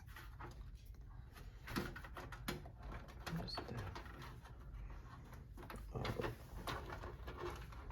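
Irregular knocks, clicks and rustling as a motherboard is worked into a PC case and its cables are pushed around, with one short high squeak about three and a half seconds in.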